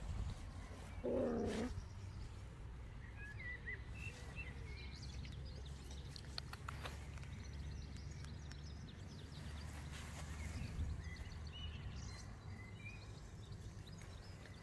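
Quiet outdoor ambience with a steady low wind rumble on the microphone, a few faint high chirps and soft clicks, and one brief louder sound about a second in.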